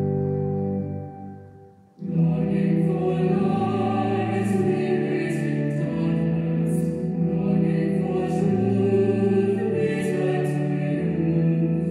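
An organ chord holds and dies away, then about two seconds in a choir begins singing a hymn.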